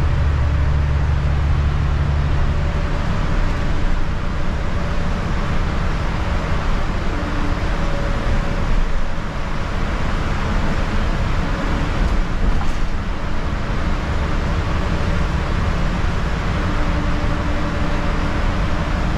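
Steady cabin noise inside a city transit bus at highway speed: the engine's drone and tyres on wet pavement, with a faint whine that comes and goes. The low drone eases about three seconds in.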